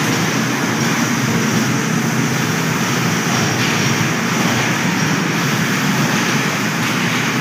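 Electric children's train ride running around its circular rail track: a steady, unbroken running noise of the cars' motors and wheels on the rails.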